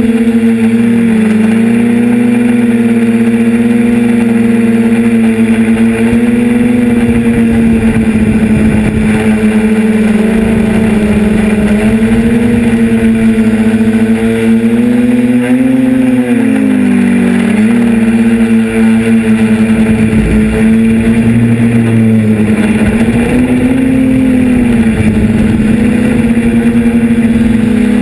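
Model aircraft's engine and propeller running with a strong steady pitch, dipping and recovering several times with the throttle as it comes down from altitude to land.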